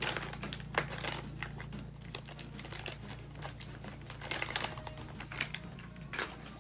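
Rustling and crinkling of crinkly material handled by hand, with many irregular small clicks, over a steady low hum.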